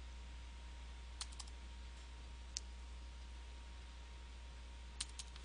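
A few separate, faint keystrokes on a computer keyboard, spread out over several seconds, over a low steady hum.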